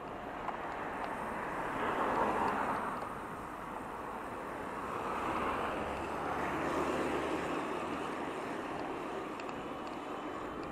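Road traffic: a steady rush of tyre and engine noise that swells and fades several times as vehicles pass.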